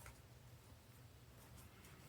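Near silence: a low steady room hum with a few faint light ticks.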